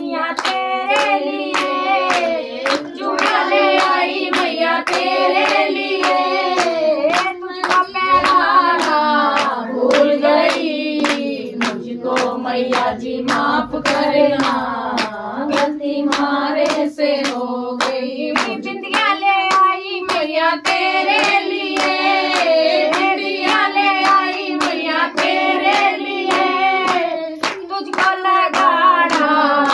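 Hindi devotional song (bhajan) sung, with steady hand clapping in time, about two claps a second.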